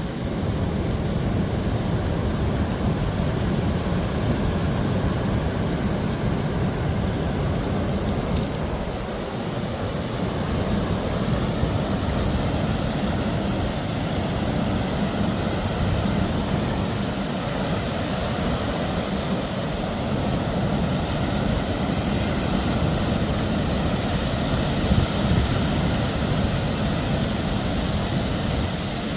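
Steady rushing wash of ocean surf and rain with a heavy low rumble, unbroken throughout, with a brief louder knock about 25 seconds in.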